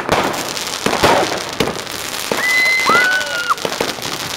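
Fireworks going off close by: a dense run of crackling and sharp pops from a spark-spewing fountain and rockets. Two short, steady high-pitched tones come a little past halfway.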